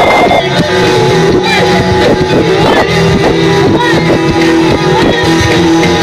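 Live rock band playing electric guitars, bass and drums, loud and rough in sound quality.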